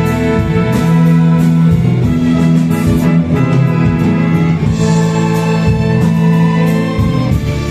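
Orchestra playing an intro passage, with violins, violas and cellos bowing held chords that change every second or so.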